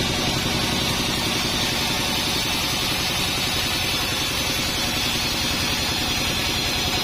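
Band saw sawmill running steadily, a continuous machine drone with a fast, even low pulsing and a hiss above it.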